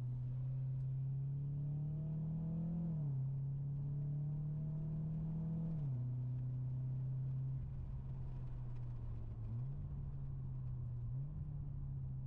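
Mitsubishi Lancer Ralliart's turbocharged four-cylinder engine heard from inside the cabin under acceleration. Its note climbs twice, each time falling quickly at a gear change about three and six seconds in, then holds a steady pitch.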